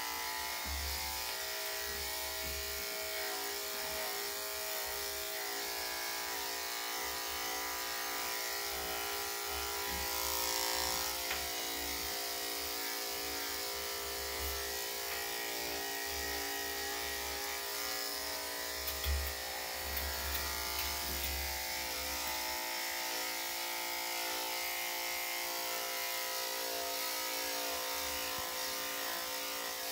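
Electric dog grooming clippers with a #7 blade running steadily, a constant buzzing hum as they are passed over the dog's body coat.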